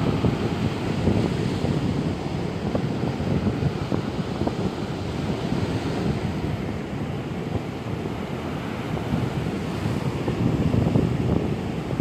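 Rough sea surf: waves breaking and washing up a sandy beach in a steady, uneven rush. Wind buffets the microphone, giving a low rumble.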